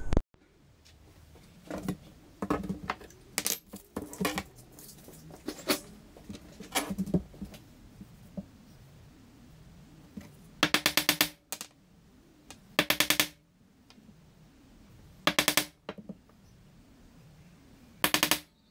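A small hammer tapping rapidly on a thin steel rod at a bench vise, in four short bursts of quick metallic taps, after a few scattered clicks and knocks of tools being handled.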